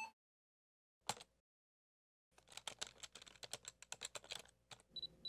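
Faint computer keyboard typing: one keystroke, then a quick run of keystrokes, followed by two short high beeps near the end.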